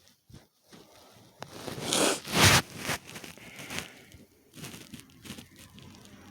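Sniffling through a congested nose from a person with a bad cold: two loud, short, noisy sniffs about half a second apart around two seconds in, followed by lighter rustling.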